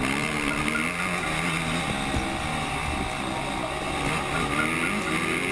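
Kawasaki dirt bike engine heard from on board under hard riding. Its pitch climbs and falls back several times as the rider works the throttle.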